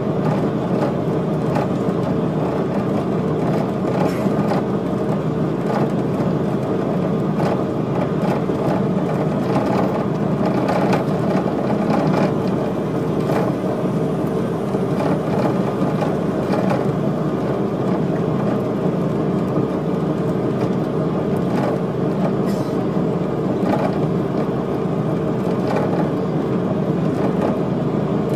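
Cabin noise inside a VDL Bova coach driving at speed: a steady drone of engine and tyres on the road, with light clicks and knocks from the cabin scattered through it.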